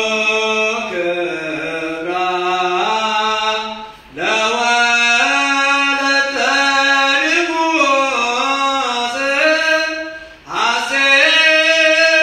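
Ethiopian Orthodox liturgical chant (zema): a solo voice sings the Ge'ez psalm verse of a Misbak in long, slowly sliding phrases. It breaks briefly for breath about four seconds in and again about ten and a half seconds in.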